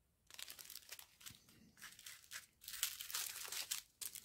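Small clear plastic bags of diamond-painting drills crinkling as they are picked up and handled, as faint irregular crackles starting about a third of a second in and a little louder in the second half.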